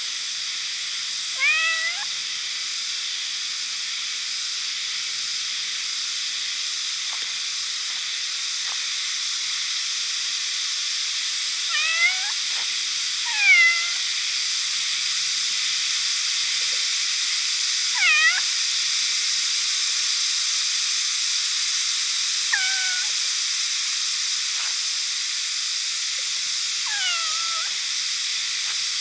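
A tortoiseshell cat meows six times, short calls spaced a few seconds apart, over a steady high hiss.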